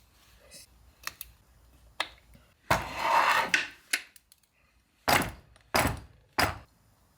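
Hammer tapping a punch to knock the drive tang off a freshly fitted M6 wire thread insert in a gearbox bell housing. Three sharp strikes come in the last two seconds, after a few light clicks and a second-long clatter of tools being handled.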